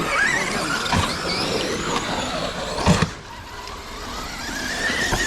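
Electric RC car motors whining, their pitch sliding up and down as the trucks are throttled, with a thump about a second in and a louder thump about three seconds in as a truck hits the ground. Near the end one motor winds up to a steady high whine.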